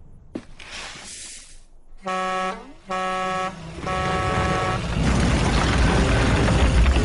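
Cartoon sound effects: a brief whoosh, then two steady horn honks a little under a second apart, then a heavy low rumble that swells and grows loudest near the end.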